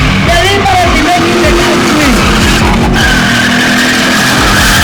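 V8-engined BMW E30 spinning: engine revving up and down repeatedly while the rear tyres screech, with a steady tyre squeal from about three seconds in. Loud throughout.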